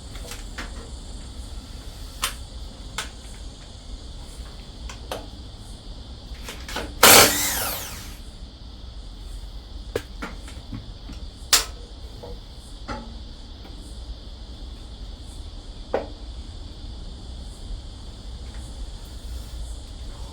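Spanners and sockets working on the scooter's CVT drive: scattered metal clicks and knocks, and about seven seconds in a loud power-tool burst lasting about a second. A steady chirring of crickets runs underneath.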